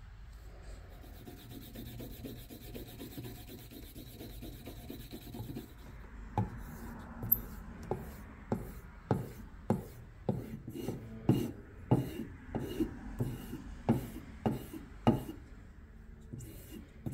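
White rouge buffing compound rubbed onto a leather strop for several seconds. Then the HYTEST axe's bit is stropped on the leather paddle strop in quick, regular swiping strokes, about one and a half a second, honing the edge to take off the burr left by filing.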